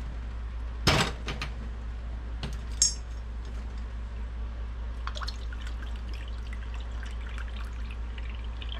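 Homemade vinegar poured from a glass bottle into a measuring cup, a thin trickle. It follows a knock about a second in and a glassy clink near three seconds as the bottle is handled. A steady low hum runs underneath.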